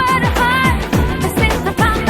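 Background music: a Hindi film-style pop song, with a sung melody over a steady drum beat of about two strokes a second.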